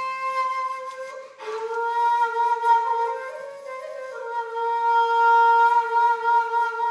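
Shakuhachi, an end-blown bamboo flute, playing a slow solo introduction to a Japanese minyo folk song in long held notes. About a second and a half in, a breathy attack starts a slightly lower note that is held, wavers upward briefly, then settles and is held again.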